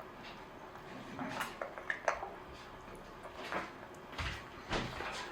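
Faint scattered knocks and clicks of objects being handled, a few at a time, the clearest about two seconds in and again near the end.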